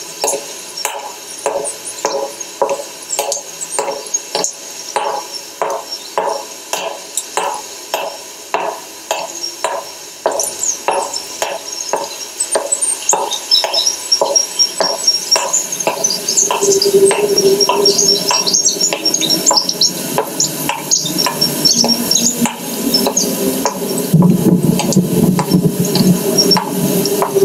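Ambient sound-art soundtrack: a steady pattern of short knocks, about two a second, each with a brief ringing tone. About halfway in, high chirping and a held tone join it, and a low drone swells near the end.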